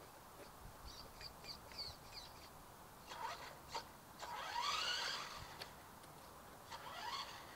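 Radio-controlled buggy's electric motor whining up in pitch in short bursts as the car accelerates away, the loudest rise about five seconds in.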